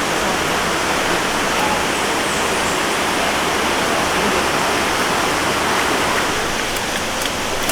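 Steady rush of water from a rainforest waterfall.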